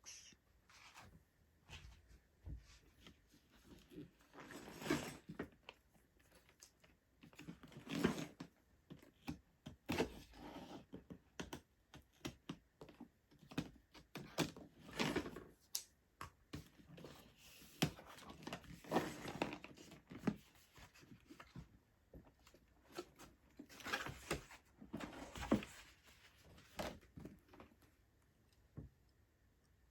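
Cardboard Lego box being opened and handled: irregular knocks, clicks, scraping and tearing as the seals are broken and the lid worked open.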